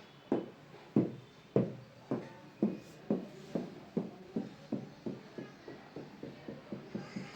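A ball bouncing on a hard floor: a train of knocks that come faster and fainter, from about two a second to about four a second, as it settles.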